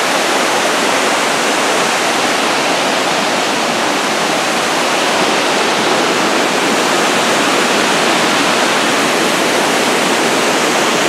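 Hemlock Falls and the whitewater cascade below it: a steady, loud rush of falling and tumbling water.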